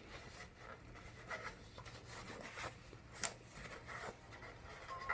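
Faint rubbing and light scraping of hands wiping around the oil filler cap of a lawnmower engine to clear off excess oil, with a few brief taps.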